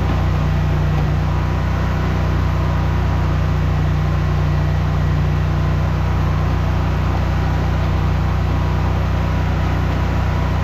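An engine running at a steady speed, a constant low drone that does not change.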